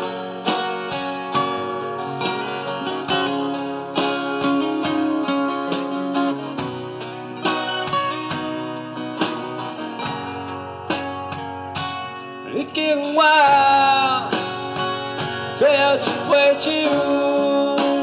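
Instrumental break from a live acoustic band: several acoustic guitars strumming and picking over a bass guitar. About two-thirds of the way through, a louder bending, wavering melody line comes in on top.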